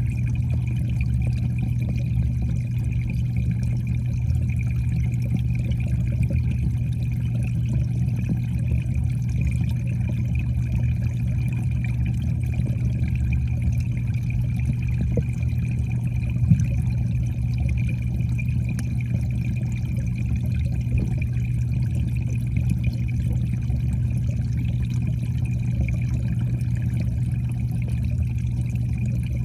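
Muffled, steady underwater sound of a koi pond, with a constant low hum and a faint high steady whine. One short click about sixteen seconds in.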